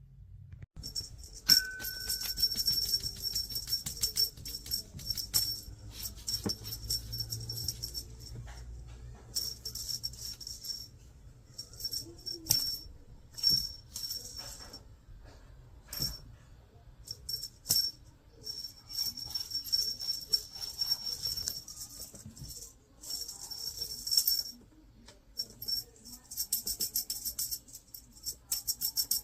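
Small bells jingling in irregular bursts, as if shaken, with short pauses between bursts.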